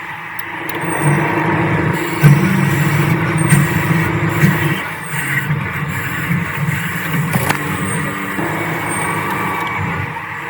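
Large metal lathe running with a steady machine hum while machining steel, its level rising and falling unevenly.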